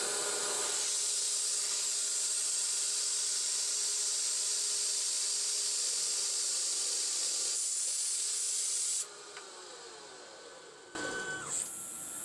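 A 9x20 CNC lathe turning at about 1430 RPM while a mini cutoff insert is fed in to part off a half-inch stainless steel slug, making a steady hiss over a faint motor whine. About nine seconds in the sound drops away suddenly, and a different mechanical sound starts about two seconds later.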